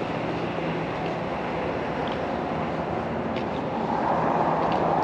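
Street traffic: a steady wash of passing vehicles, swelling as one goes by near the end.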